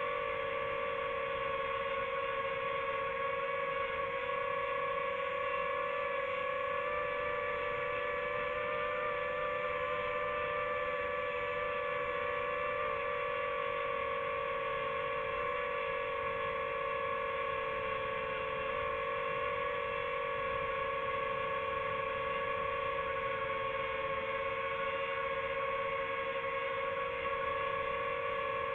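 Small quadcopter drone's motors and propellers whining steadily while it hovers, a constant two-note hum.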